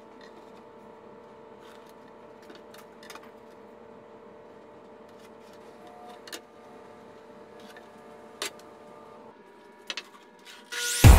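Light taps and clicks of a plastic speed square and pencil against pallet boards, a few scattered strikes over a faint steady hum in the shop. Loud electronic music cuts in abruptly right at the end.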